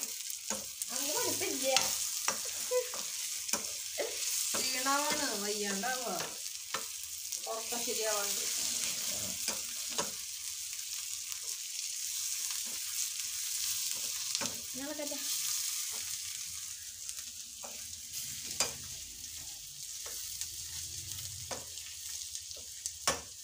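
Garlic, green chillies and ground spices frying in oil in a pan, a steady sizzle, with a spoon stirring and scraping against the pan in scattered clicks.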